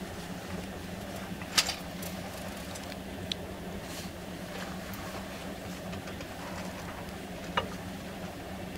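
Cabin noise inside a KTX high-speed train rolling slowly into a station: a steady low hum and rumble, broken by three sharp clicks, the loudest about one and a half seconds in.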